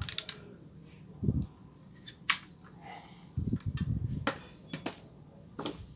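Handling of a plastic phone holder with a copper sheet taped to its back: low rubbing and shuffling as it is moved and set down, with three sharp plastic clicks and knocks spread through.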